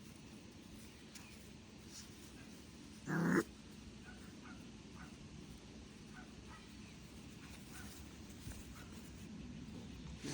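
A dog barks once, short and loud, about three seconds in, with a few faint clicks and taps around it.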